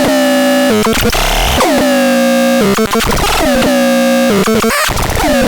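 Synthesizer playing loud, harmonically rich tones. Roughly once a second a new note starts with a quick downward pitch swoop, then holds steady.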